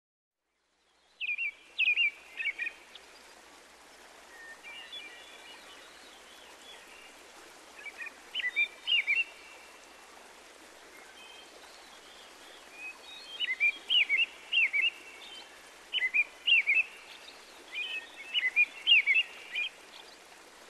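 Small birds chirping and twittering in quick phrases of several notes, over a steady background hiss of rain. It starts about a second in, and the chirping grows busier in the second half.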